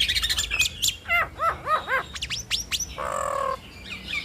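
Jalak Nias starlings singing in duet: a rapid chatter of sharp notes, then a series of about four arching whistles and several quick up-slurred whistles, a harsh buzzy note about three seconds in, and quick repeated chirps near the end.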